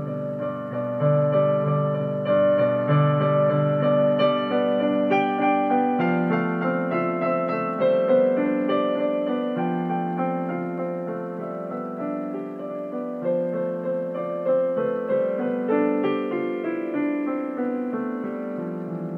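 Slow piano music: held chords and single notes played one after another at a gentle pace.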